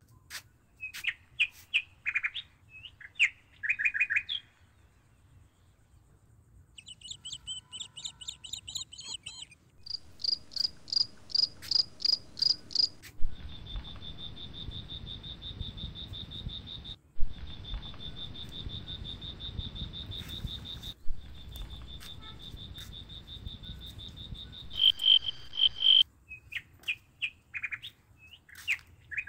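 Night insects calling. Short high chirps give way to fast pulsing trills, then a long steady high-pitched trill that breaks off abruptly a few times, and chirps return near the end.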